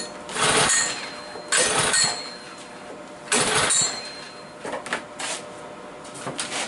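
Three pulls on the recoil starter of a Predator 173cc overhead-valve engine, each a short rasping whir about a second and a half apart. The engine turns over but does not catch, as it would with the kill switch in the off position.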